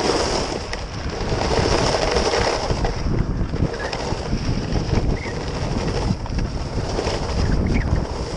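Wind buffeting a GoPro's microphone as a skier moves downhill at speed, with the steady hiss and scrape of skis sliding on hard-packed snow.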